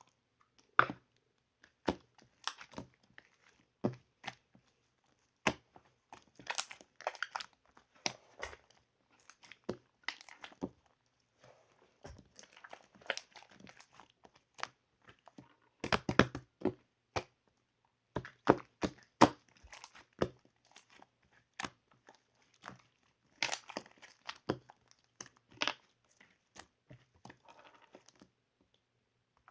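Eating strawberry bingsu: a spoon crunching and scraping through shaved ice, with chewing, in irregular clicks and crunches.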